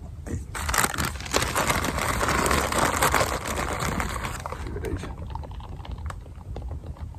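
Bait being handled and packed into a PVA mesh bag: a dense run of small crackles and rustles, loudest in the middle and thinning out near the end.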